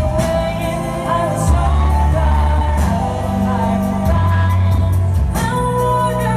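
A live pop band playing with a woman singing: a sung melody with long held notes over steady bass notes and drum and cymbal hits.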